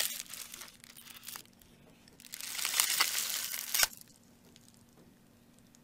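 Thin plastic film crinkling as it is peeled off a natto tray with chopsticks, loudest from about two to four seconds in.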